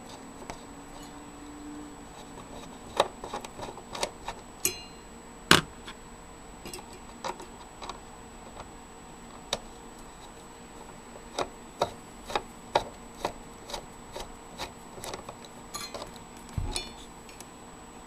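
Screwdriver turning screws out of a finned metal heatsink: irregular small metallic clicks and scrapes, a dozen or more scattered through, the sharpest about five and a half seconds in.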